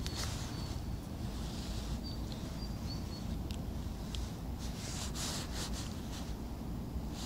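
Small clicks and rustles of hands and jacket sleeves while a small ruffe is unhooked, busiest around the middle, over a steady low rumble. A faint high thin whistle comes and goes in the first three seconds.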